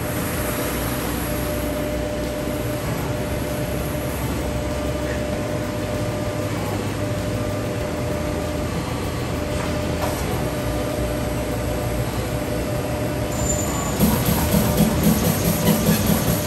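CNC turret punch press running, a steady mechanical hum as it positions an aluminium sheet, then from about 14 s in a louder series of repeated thuds, a few a second, as it punches rivet and bolt holes in the sheet.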